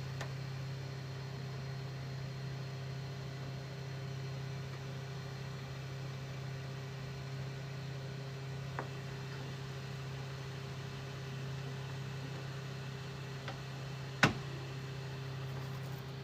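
Steady low mechanical hum with a fainter higher tone over it, broken by two faint ticks and then one sharp click near the end.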